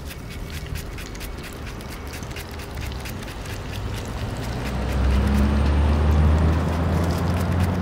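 A motor vehicle's low engine hum swells from about halfway in and is loudest near the end, over a steady fine crackling.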